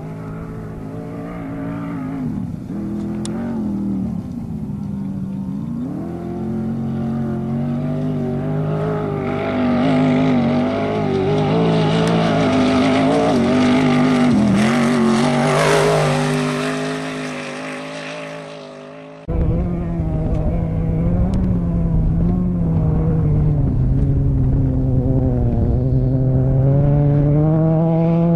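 Off-road race vehicle engines running hard through deep silt. One vehicle grows loud and passes about a third of the way in, then fades, and just past the middle the sound jumps abruptly to another engine running at high revs.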